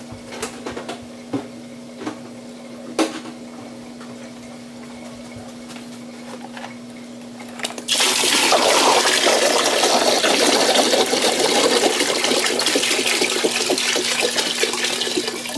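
Water pouring in a heavy, steady rush from a plastic jug into a 32-gallon Brute plastic garbage can, starting about halfway in and easing off near the end. Before it, a few light knocks of plastic being handled over a steady low hum.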